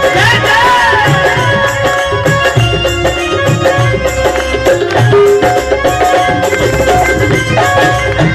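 Instrumental interlude of a live devotional bhajan band: a held, sliding keyboard-style melody over a steady hand-drum rhythm.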